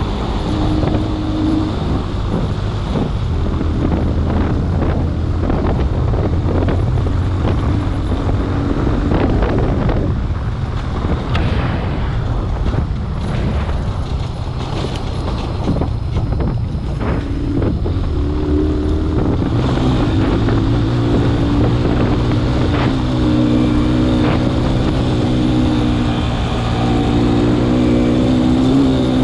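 A vehicle engine running on a rough laterite dirt track, its note falling and rising with the throttle, with frequent knocks and rattles from the bumps.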